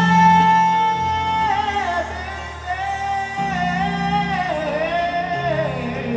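Live R&B ballad: a male lead singer holds a long high note, then runs down through wavering melismatic phrases over sustained band chords.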